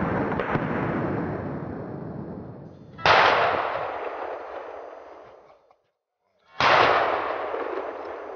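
Hunting rifle shots, each a sharp crack followed by a long rolling echo that fades over two to three seconds: the echo of one shot dies away at the start, and two more shots go off, about three seconds in and near the end.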